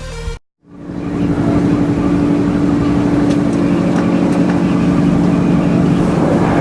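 VT 98 railbus diesel engine running steadily, a droning hum with two steady tones. It fades in after a brief silent gap about half a second in.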